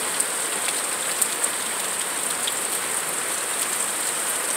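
Steady rain falling, with scattered single drop ticks. Through it runs an unbroken high-pitched buzz.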